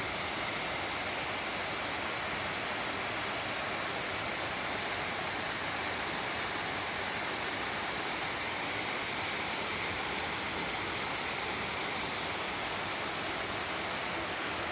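A creek flowing: a steady, even rush of water.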